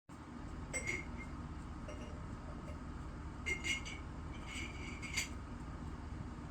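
Heeler puppy hiccupping: short, high, clink-like sounds about a second in, then several more between three and a half and five seconds in.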